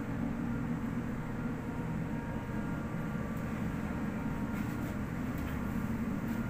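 Ship's engine-room machinery running: a steady low drone with faint steady whining tones above it.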